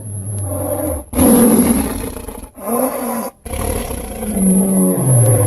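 Indominus Rex dinosaur roar sound effects: a low growl, then a loud roar about a second in, a short roar, and a long roar that slides down in pitch near the end.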